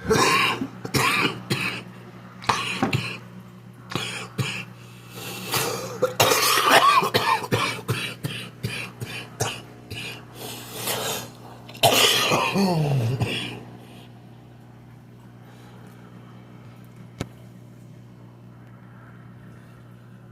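A person coughing and clearing their throat in a long fit of repeated coughs, stopping about two-thirds of the way through. After that only a steady low hum remains.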